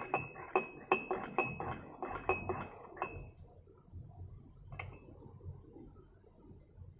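A spoon clinking against a glass in quick repeated strokes, as when stirring, for about three seconds, then one more clink near five seconds in.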